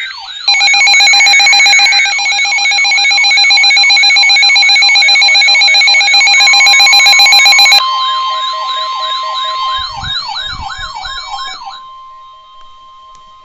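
Emergency alert broadcast tones: a loud, dense mix of steady alert tones and wailing siren-like sweeps that rise and fall about three times a second. The densest part cuts off suddenly about eight seconds in. A single long steady alert tone, like the weather-radio tone, starts about six seconds in and continues after the sweeps stop near twelve seconds.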